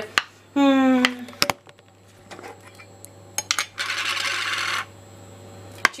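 Metal twist-off lid of a glass jar being unscrewed and set down: a short squeak near the start, then sharp metallic clicks and clinks, and a scraping sound lasting about a second a few seconds in.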